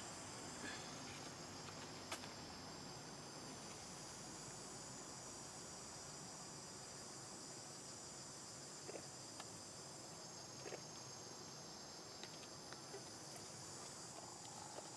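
Steady high-pitched insect chorus, with a few faint clicks, the sharpest about two seconds in.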